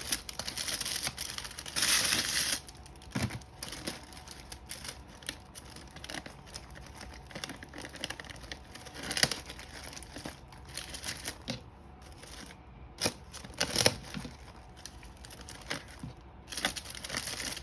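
Crinkling and rustling of gift-wrapping material being handled, loudest in two spells in the first couple of seconds, then scattered light rustles and small clicks and taps.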